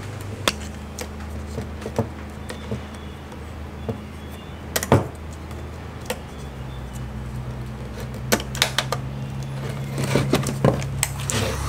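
Light, scattered clicks and taps of a plastic trail camera and a cutter being handled, over a steady low hum. The clicks are loudest about five seconds in and bunch together near the end.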